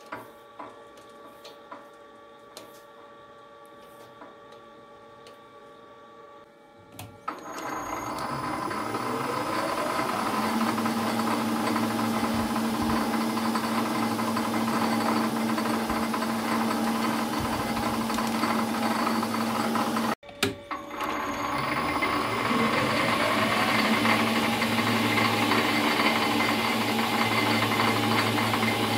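Small metal lathe: a few clicks as the work is handled in the chuck, then about seven seconds in the motor spins up with a rising whine and runs steadily while a tailstock drill bores into the brass bar. Near twenty seconds the sound cuts off suddenly, then the lathe spins up again and runs on.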